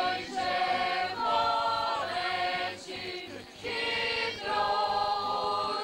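Several voices singing together in long held notes, phrase after phrase with short breaks between, the pitch sliding at the end of some phrases.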